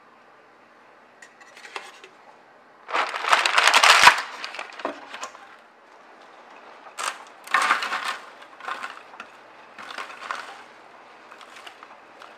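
Parchment paper crinkling and rustling as it is pressed into a metal baking pan, loudest for about a second near the start. Later comes a few more rustling, scattering bursts as dry oat crumble is tipped into the lined pan.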